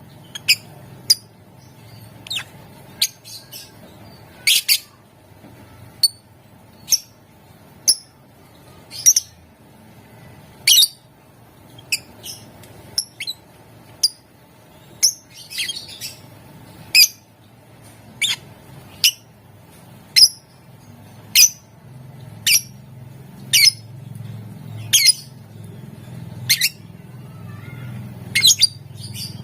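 Lovebird giving short, sharp, high-pitched squawking calls, one roughly every second, over a faint low hum.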